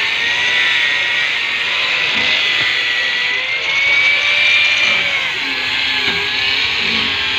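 Handheld electric grinder running continuously with a high whine; the whine rises about halfway through and drops back a second or so later.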